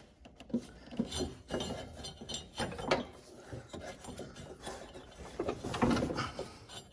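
Hands working the drive belt off the front pulley of a lawn tractor's mower deck: rubbing and scraping with scattered light metal clinks and knocks.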